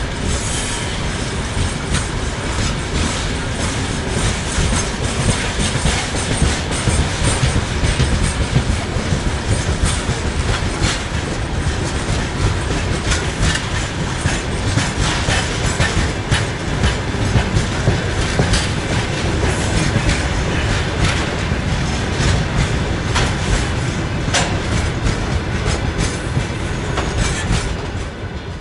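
Freight train's gondola wagons rolling past at close range, their wheels clattering over the rail joints in a steady run of clicks and rumble. The noise falls away near the end as the last wagon passes.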